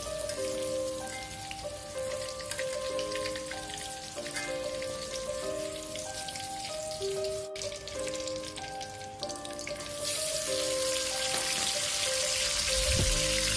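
Hot oil sizzling in a wok as chilies, shallots and garlic fry, the sizzle growing louder about ten seconds in as tomato pieces go into the oil. Background music plays a simple melody of held notes over it.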